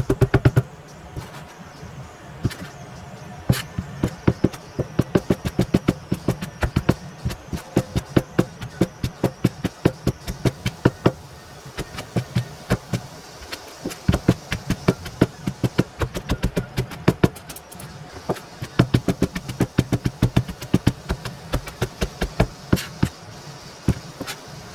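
Kitchen knife chopping vegetables on a cutting board, fast even strokes several a second, in runs with brief pauses.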